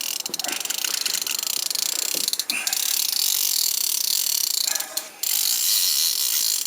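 Fishing reel ratcheting rapidly and continuously with a big sturgeon on the line, breaking off briefly about five seconds in.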